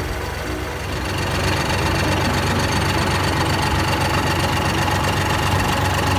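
Kubota GL-25 compact tractor's three-cylinder liquid-cooled diesel engine running steadily, getting louder about a second in, with a steady higher whine over the engine drone while the rear PTO shaft turns.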